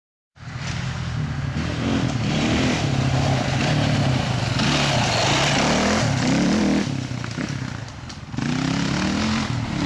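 Off-road dirt bike engine revving as the bike rides a dirt trail, the pitch repeatedly rising and falling with throttle. It eases off about eight seconds in, then revs up again.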